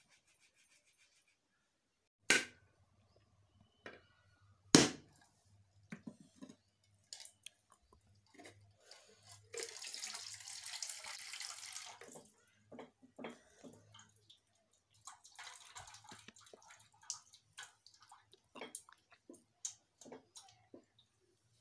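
A machete striking a coconut, with two loud blows a few seconds in and lighter taps after, then coconut water pouring into a metal bowl for a couple of seconds, and again more faintly later.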